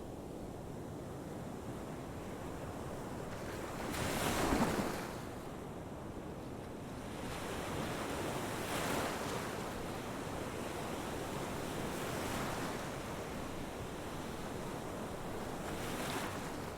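Steady rushing noise that swells and ebbs every few seconds, with the strongest surge about four seconds in.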